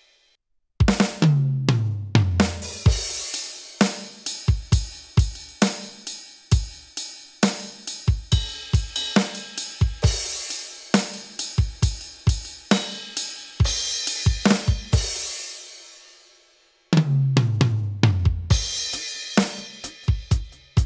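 Aroma TDX-25 electronic drum kit sounding through its module on the K13 J-Standards kit: a tom fill running down from high to low toms, then a steady beat of kick, snare and hi-hat with cymbal hits, ending on a crash that rings out and dies away. After a brief silence, a second descending tom fill leads back into the beat.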